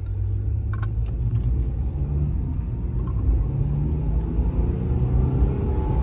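Vehicle accelerating from a stop on 33x12.50 Fuel Gripper MT mud-terrain tires, heard inside the cab: low engine and road rumble, with tones that rise in pitch as speed builds. A brief click comes about a second in.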